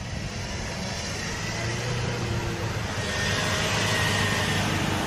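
A hatchback car's engine running and its tyres on snow as it drives off along a snowy street. It makes a steady hiss with a faint whine, growing a little louder.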